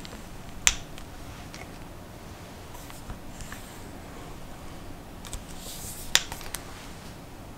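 Throw lever of a Really Right Stuff Anvil 30 ball head clicking as it is opened and snapped shut, two sharp metallic clicks about five and a half seconds apart, with a faint rustle and a few light ticks as the rifle is swung on the head between them.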